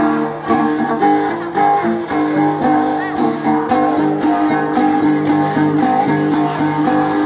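Thái folk dance music led by a plucked string instrument, with a steady beat.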